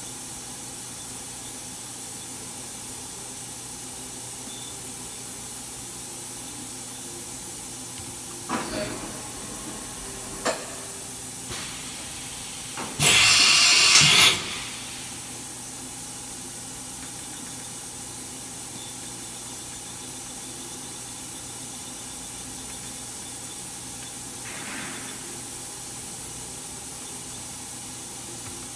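Daewoo DMV-500 vertical machining center making an automatic tool change over the steady hiss of the running machine: a few short knocks, then a loud rush of compressed air lasting just over a second midway as the double-arm changer swaps the tool in the spindle, and a faint brief hiss near the end.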